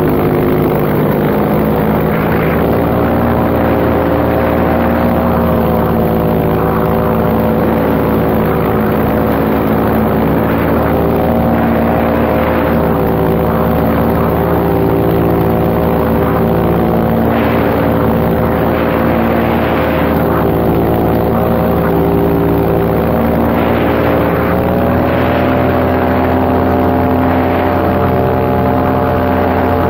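Paramotor engine and propeller running steadily in flight. The engine's pitch rises slightly a little after three quarters of the way through.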